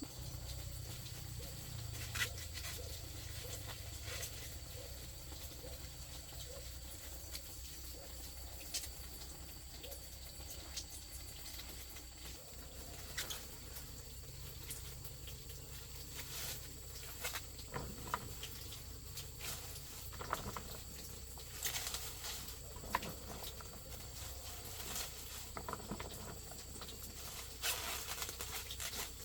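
Steady high-pitched insect drone, likely crickets, with irregular light taps and rustles scattered through it, more frequent in the second half.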